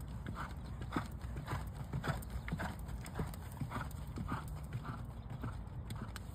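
Hoofbeats of a chestnut horse trotting on a dirt track, an even clip-clop of about two beats a second.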